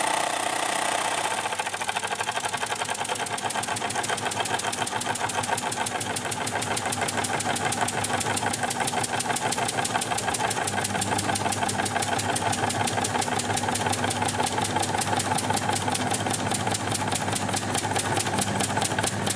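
Bowman Pioneer model marine steam engine running under steam, ticking and puffing in a quick, even beat that sets in about a second and a half in. A washing machine runs in the background.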